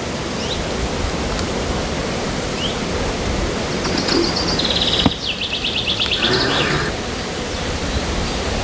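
Steady rushing outdoor noise with a small bird calling: a rapid high trill of repeated notes about four seconds in, lasting two to three seconds. A single sharp click comes about five seconds in.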